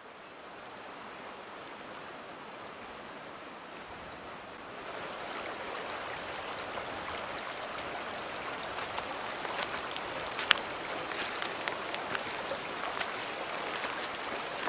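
Steady rush of flowing river water, growing louder about five seconds in, with scattered sharp clicks and taps over it in the second half.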